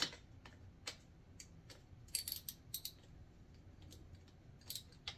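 Light metallic clicks and taps of a wrench and socket working the oil drain bolt under a dirt bike's engine: a few single clicks, a quick run of clicks about two seconds in, and a couple more near the end.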